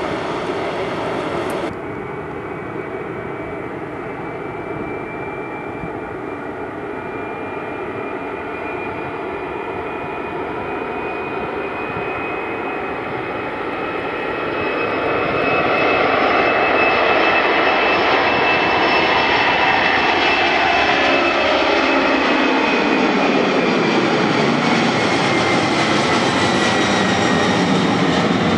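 Jet airliner's turbofan engines at takeoff power: a steady rumble with a high whine, growing much louder about halfway through as the aircraft accelerates and climbs out. Near the end the engine tones fall in pitch.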